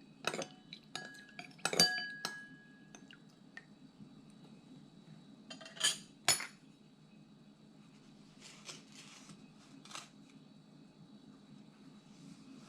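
A metal spoon clinks and taps against a small bowl while sauce ingredients are mixed. There are a few sharp ringing clinks early, two louder clatters midway, and softer scraping later.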